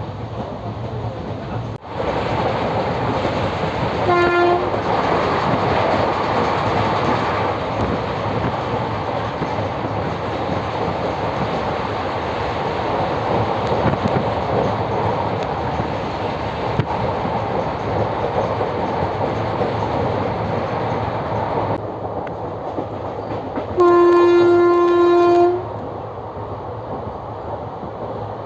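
Passenger train running with steady wheel-and-rail noise. A train horn gives one short blast about four seconds in and a longer blast of about two seconds near the end.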